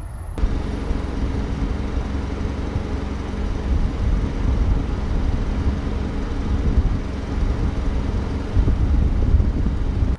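Steady hum of a running motor vehicle's engine, with gusty wind rumbling on the microphone.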